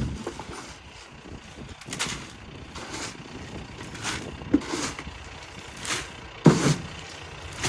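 Truck engine running at a low, steady idle, broken by a few short knocks and clunks.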